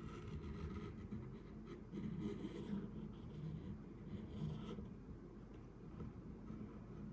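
Faint handling sounds of a smartphone being worked on by hand: irregular short scraping and rubbing, in spurts just at the start, about two seconds in and about four and a half seconds in.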